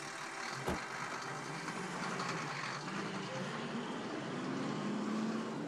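A motor vehicle's engine running steadily, with one short knock near the start.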